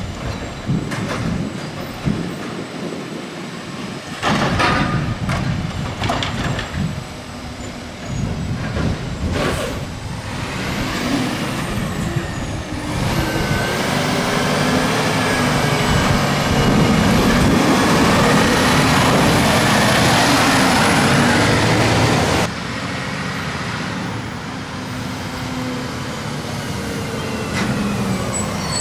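Peterbilt 320 garbage truck with a Dadee Scorpion automated side-loader body working: short air hisses and knocks in the first several seconds, then the engine rises with a whining pitch as the truck pulls away. The sound drops off suddenly about three-quarters of the way through and becomes a steadier, quieter engine.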